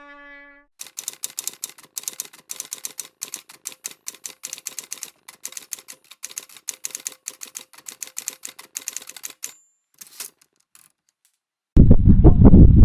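Rapid typewriter key clicks, several a second, ending with a short high ding about nine and a half seconds in. Near the end a much louder, low rumbling outdoor noise cuts in suddenly.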